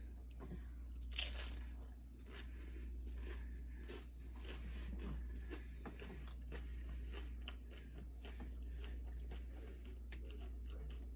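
Doritos nacho chips being bitten and chewed close to the microphone: repeated crisp crunches, with one loud bite about a second in.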